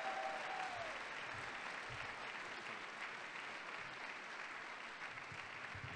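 A large audience applauding, the clapping slowly dying down.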